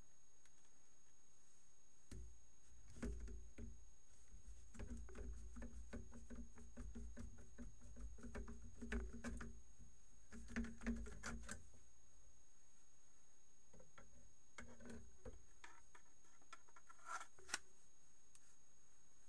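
Old wooden-handled limb clippers being handled and worked: faint metal clicks and scraping from the blades and pivot over a low rumble, in a dense run for several seconds, then a few shorter clusters of clicks near the end.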